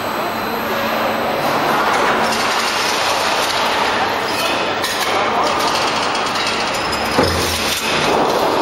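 Machinery of a steel slit-coil packing line running as a coil is handled: a steady mechanical din with scattered metallic clinks, and a low thud about seven seconds in.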